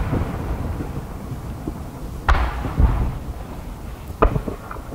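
Aerial firework shells bursting: a loud boom about two seconds in with a second shortly after, then a sharper bang near the end followed by a few smaller pops, each trailed by a rolling echo.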